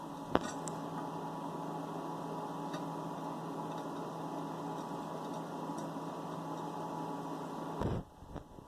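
Steady mechanical hum with a sharp click about half a second in; the hum cuts off suddenly near the end.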